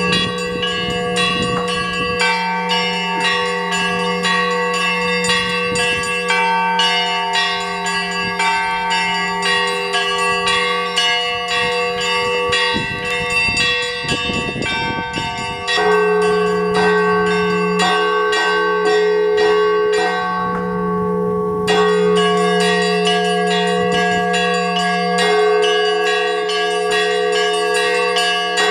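Russian Orthodox church bells ringing a zvon. A deep bell's hum carries on underneath while several smaller bells are struck in a rapid, repeating pattern over it. The deep bell is struck again loudly about halfway through.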